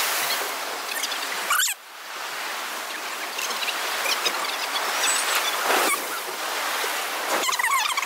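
Rough sea surf washing against a concrete dock, a steady rushing noise that briefly drops out about two seconds in.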